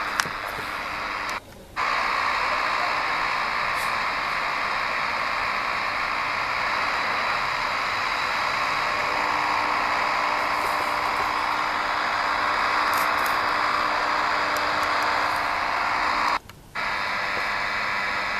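Shortwave receiver in SSB mode tuned off-station: a steady hiss of band noise with a few faint, steady whistling tones. The audio cuts out for a moment twice.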